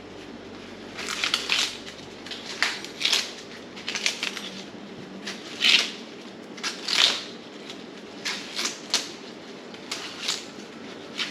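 Silver Queen sweet corn husks being torn and peeled back from the ear by hand: an irregular run of crisp, crackling rips and rustles, the loudest about six and seven seconds in.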